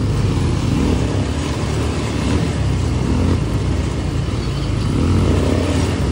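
ATV (quad bike) engine running steadily while being ridden, heard from on the bike.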